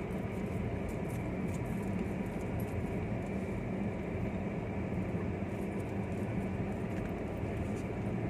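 A vehicle engine running steadily: a low, even hum with no change in pitch.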